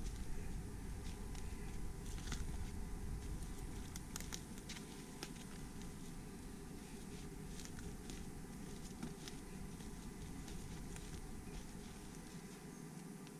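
Footsteps of a hiker on forest-floor leaf litter: irregular crackles and snaps of dry leaves and twigs underfoot, over a low rumble that fades near the end.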